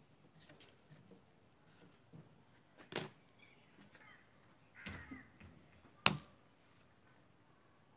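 Faint knocks and clicks from hands handling a homemade steel lathe frame and its mounted drill, with two sharp clicks about three and six seconds in.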